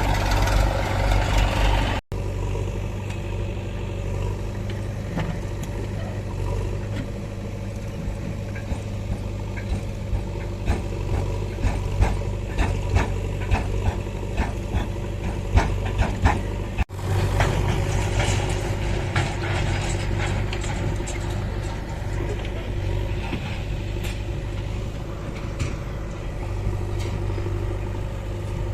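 Diesel engine of a JCB 3DX backhoe loader running steadily at work. A dense run of sharp clanks and knocks comes in the middle. The sound breaks off abruptly twice, about 2 s in and again about 17 s in.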